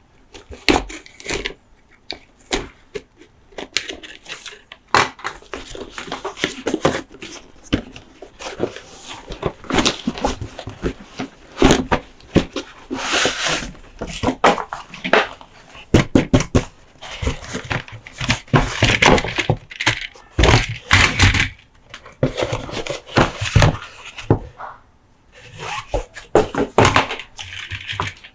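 Close-up handling of diecast toy monster trucks and their packaging: irregular taps, clicks, scrapes and crinkles, dense throughout with a short pause near the end.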